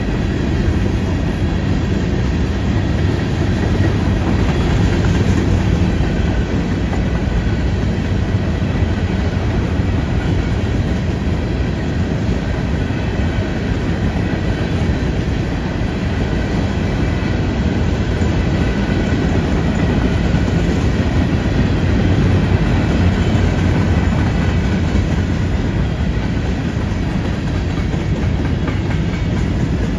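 Freight train of covered hopper cars rolling past, a steady loud noise of steel wheels running on the rails.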